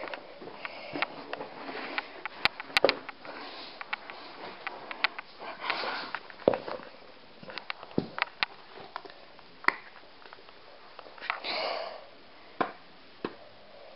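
A person moving quietly at close range: scattered soft clicks and knocks of handling, with a few breathy sniffs or breaths.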